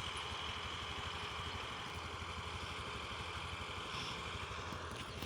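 Combine harvester's engine running steadily at idle, a low, even hum with a fast firing rhythm.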